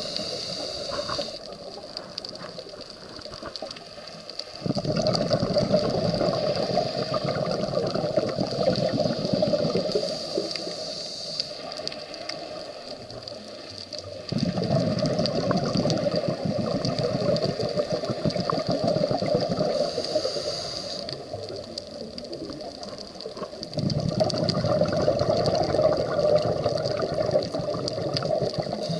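Scuba diver breathing through a regulator underwater: three long rushes of exhaled bubbles, about ten seconds apart, with a quieter hiss of inhalation between them.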